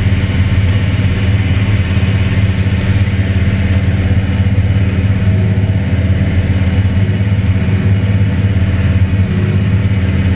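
John Deere combine running steadily under load while its pickup header feeds in a barley windrow: a steady low hum of engine and machinery.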